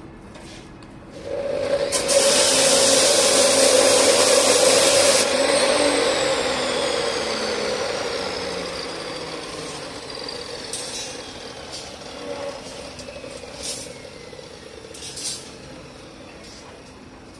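Electric water-pump motor switched on about a second in, running loudly with a steady hum and a rushing hiss for a few seconds, then switched off and winding down with a slowly falling whine that fades over about ten seconds.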